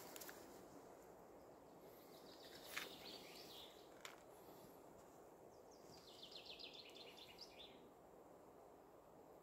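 Quiet forest background with a songbird: short calls about two to three seconds in, then a fast trill of repeated notes dropping in pitch about six seconds in. Two light clicks of wooden kindling being handled, the louder about three seconds in.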